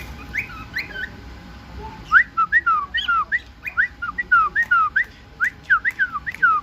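Quick whistled chirps, each a short sliding note rising or falling in pitch: a few scattered ones at first, then a rapid string of about five a second from about two seconds in.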